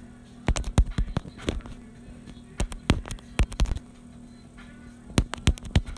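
Runs of sharp taps and knocks close to the microphone, coming in quick irregular clusters of several hits with pauses between, over a faint steady low hum.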